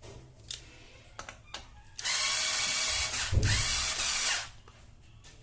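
Power drill-driver running for about two and a half seconds, driving a screw into the wall socket, with a brief break and restart partway through. A few small handling clicks come before it.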